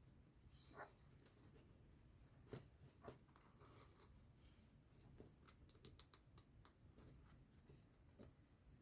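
Faint sounds of hand embroidery: needle and thread drawn through fabric, with soft rustles and a scatter of small clicks and ticks.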